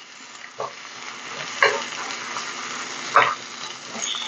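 Diced ham and scrambled egg sizzling in a wok while a wooden spoon stirs and scrapes the stuck bits off the bottom, with a few louder scrapes standing out over the steady sizzle.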